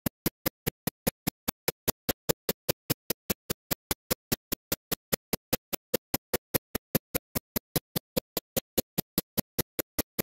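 A rapid, perfectly even train of short clicks, about five a second, with silence between each.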